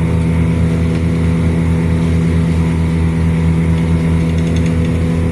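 Engine of a log-handling grapple machine running steadily at constant speed, with a low, even throb.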